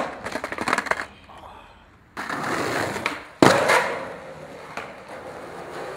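Skateboard wheels rolling and rattling over paving stones, then after a short quiet gap, skateboard wheels rolling on a smooth tiled floor, with one sharp clack of the board about three and a half seconds in before the rolling goes on.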